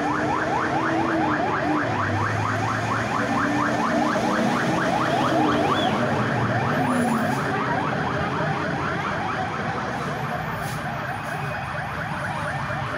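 Emergency vehicle siren sounding a fast yelp: quick rising sweeps repeating several times a second, growing a little fainter in the second half.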